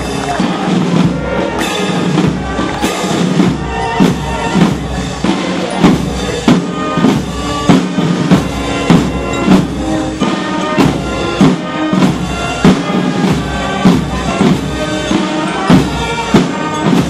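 Military band of snare drums, bass drums and brass playing a march, the drums keeping a steady marching beat with a strong stroke about once a second under sustained brass.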